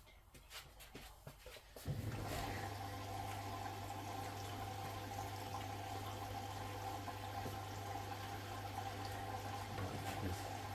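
Bosch Serie 6 washing machine filling: about two seconds in, water starts rushing into the machine and runs on steadily with a low hum, as the wash cycle takes in water after starting.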